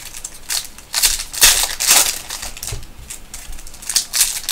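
Foil wrapper of a Panini Optic basketball card pack crinkling in the hands as it is handled and opened, in a run of short, irregular rustling bursts.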